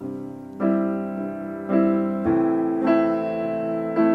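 Piano introduction of a song: slow chords, a new one struck about every half second to second, each left ringing.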